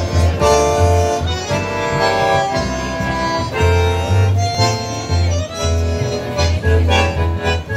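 Bandoneón playing a tango, its held reedy chords moving in phrases over regular low plucked notes from a double bass.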